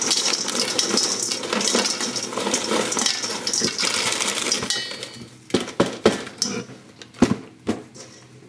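Dry food rattling steadily as it is poured from a box into a bowl, ending after about four and a half seconds; then about half a dozen separate sharp clinks, like a utensil striking the bowl.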